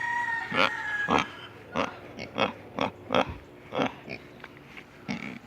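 Pigs grunting, a string of about eight short grunts a fraction of a second to a second apart. A rooster's crow trails off about a second in.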